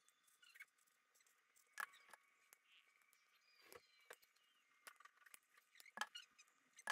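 Faint handling sounds of a dry paper mache skull and its teeth being worked by hand: light scratching with a few sharp clicks, the loudest about two seconds in and again about six seconds in.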